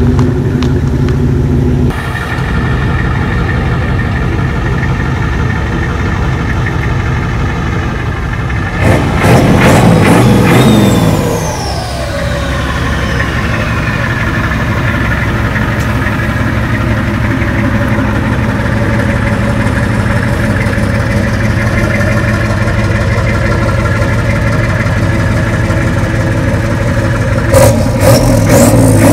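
Old rat-rod pickup's engine idling steadily through its side-exit exhaust. About nine seconds in it is revved hard once, and the pitch falls back to idle over a couple of seconds. A short burst of louder engine noise comes near the end.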